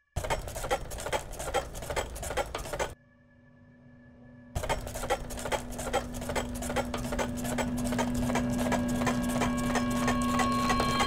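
Experimental sound-design score: a dense, rapid crackle of clicks that cuts out about three seconds in, leaving a faint low hum, then returns a second and a half later over a steady low drone. Higher steady tones join toward the end as the whole texture grows louder.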